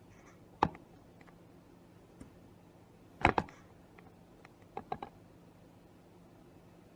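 A few sharp clicks and knocks of small equipment being handled: a single click under a second in, a louder double knock a little past three seconds, and a quick run of light clicks around five seconds.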